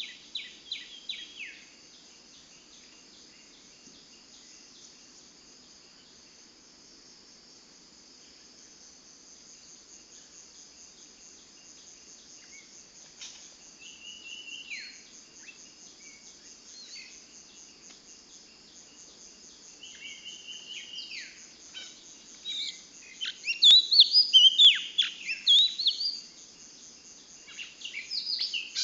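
A songbird calling: a quick run of chirps at the start, a few scattered sweeping calls in the middle, and a loud burst of varied, rapid chirping near the end. Under it runs a steady high insect chirring.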